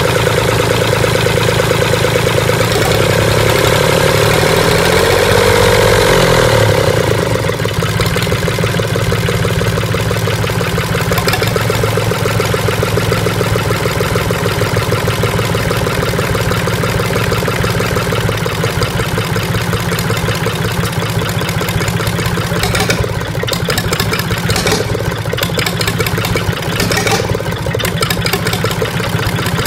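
Mitsubishi L3E three-cylinder diesel engine running on a stand with its rocker gear exposed. It runs faster with a wavering pitch for the first six seconds or so, then settles to a steady idle about seven seconds in. A few sharp knocks come near the end.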